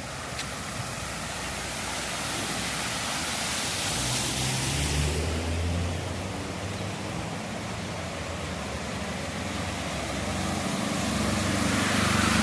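Heavy rain, with cars driving through standing water on a flooded street, their tyres hissing and spraying. One car's engine swells as it passes about four seconds in, and another near the end.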